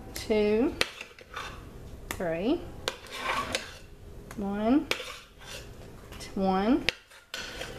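Long-handled metal spoon scooping thick hot-process soap out of a slow cooker's stoneware crock into molds: scraping and clinking, with a short squeal that dips and then rises in pitch about every two seconds, four times.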